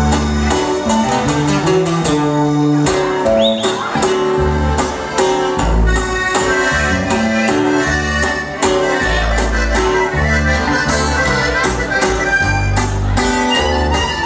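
Norteño band music: an accordion melody over guitar and a deep bass line at a steady dance tempo.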